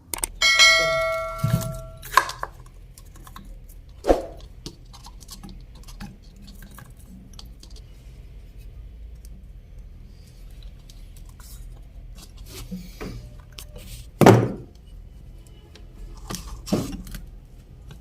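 Metal parts and tools being handled at a workbench: a brief ringing clang of metal just after the start, then a few separate dull knocks spread through the rest, over a faint low hum.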